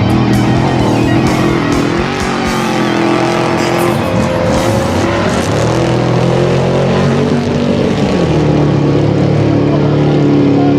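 Class 8 off-road race truck engine running hard, its pitch climbing and dropping with the throttle, with music playing over it.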